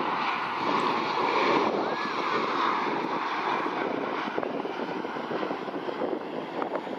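Airbus A321neo's twin jet engines at taxi power, a steady distant rushing drone, mixed with wind buffeting the microphone.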